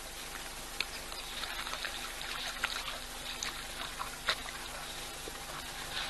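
Outdoor ambience from a wildlife camera's microphone: a steady hiss with scattered small clicks and ticks, and a faint high-pitched hum from about a second in until about halfway.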